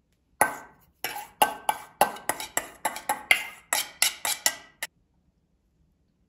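Metal spoon knocking and scraping against a stainless steel mixing bowl to get the last of the cream out. There are about fifteen quick ringing strikes, three or four a second, and they stop abruptly.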